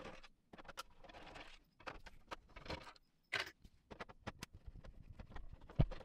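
Screws being undone from the plastic back casing of a small radio cassette player: faint irregular clicks and short scrapes of a screwdriver, with a sharper knock near the end.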